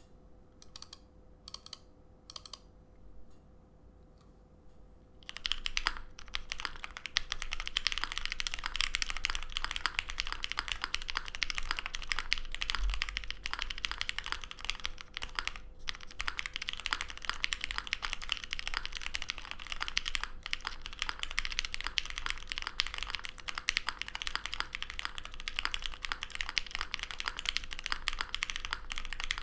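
Typing on an ai03 Vega mechanical keyboard with lubed Cherry MX Black Hyperglide linear switches on a full aluminium plate, GMK Modern Dolch 2 keycaps and foam in the case. A few separate keystrokes at first, then fast continuous typing from about five seconds in, broken by a couple of brief pauses.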